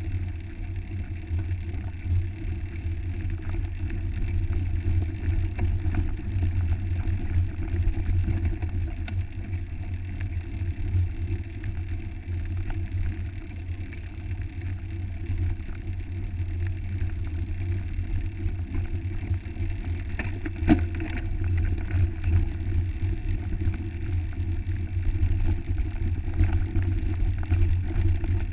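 Steady low rumble of wind buffeting and trail vibration picked up by a camera on a mountain bike's handlebars while riding a dirt trail, with scattered small rattles and one sharp knock about two-thirds of the way through.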